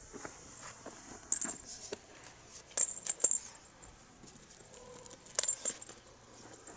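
Cat teaser wand toy swung and bouncing on asphalt, giving short jingling, clinking rattles in three brief clusters: about a second in, around three seconds, and about five and a half seconds in.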